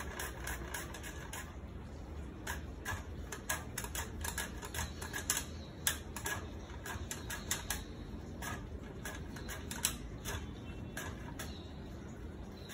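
A small beet being sliced thin on a handheld red plastic mandoline: quick, repeated strokes across the blade, each a short crisp clack, a few per second and a little uneven.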